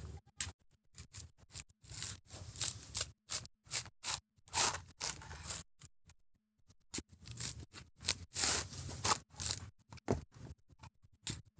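Coconut husk being torn off on an upright pointed steel crowbar: repeated short ripping and scraping of dry coconut fibre, in a few bursts with a short pause about halfway through.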